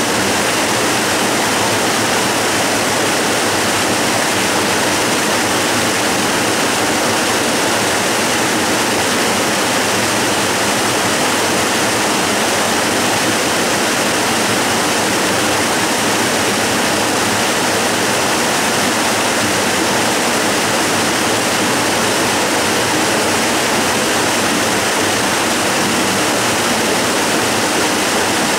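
Waterfall rushing steadily: an even, unbroken wash of falling water with no change in level.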